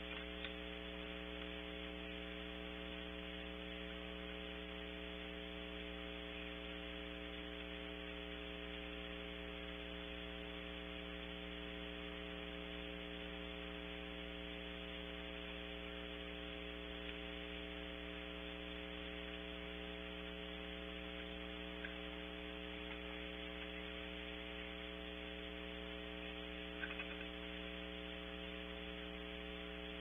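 Steady electrical mains hum with a hiss over it from a wildlife nest camera's audio feed, unchanging throughout, with two faint brief ticks late on.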